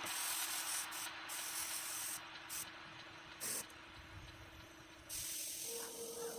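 Spray paint hissing out in short spurts, then a longer steady pass near the end, as a motorcycle gas tank is being repainted.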